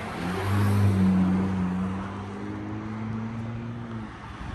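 A motor vehicle passing on the road, its engine a steady low hum that swells about half a second in and dies away after about four seconds, over the hiss of other traffic.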